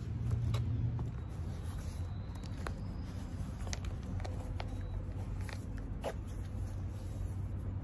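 Laces being pulled and worked through the eyelets of a black leather Wolverine BLVD boot: a scattering of short scratchy rubs and ticks, about half a dozen, over a steady low rumble.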